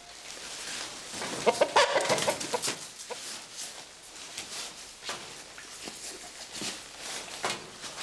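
Rustling and crinkling of a stiff waterproof rain jacket and a nylon sleeping bag being handled in scattered bursts. About one and a half seconds in there is a louder run of short pitched sounds.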